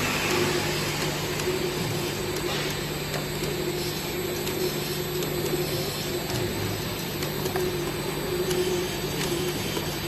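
Bottle filling, capping and labeling line running: a steady machine hum with faint light ticks.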